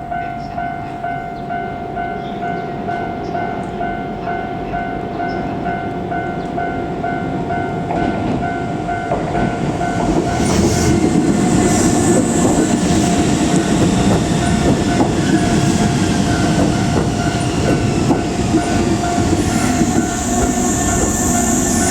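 Japanese railway level crossing's warning bell ringing as a steady repeating ding, while an electric commuter train on the Keisei Kanamachi Line approaches and passes. The train's wheel and running noise swells about halfway through and stays loud under the bell.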